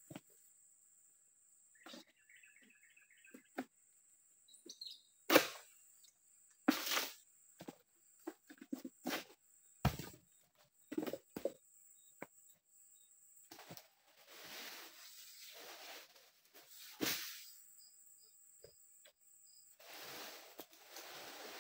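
Egrek, a long-poled oil palm harvesting sickle, working at a palm: scattered sharp knocks and thumps as the blade strikes, with two spells of rustling leaves. A few bird chirps, and a thin steady high tone throughout.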